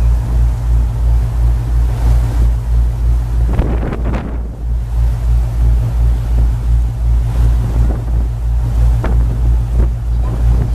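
Heavy, evenly pulsing low rumble and wind buffeting the microphone aboard a river sightseeing boat underway, over the rush of its churning wake.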